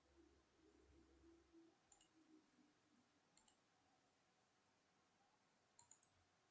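Near silence, broken by three faint computer mouse clicks, about two, three and a half and almost six seconds in.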